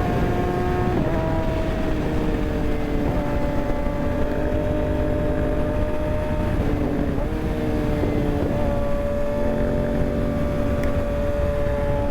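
Kawasaki ZX-6R inline-four engine running under way, its pitch dropping and climbing again a few times with the throttle, over a steady heavy rush of wind noise.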